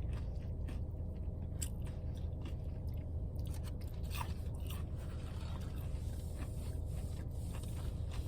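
Close-up chewing and mouth sounds of a person eating, with scattered small clicks and crunches over a steady low hum.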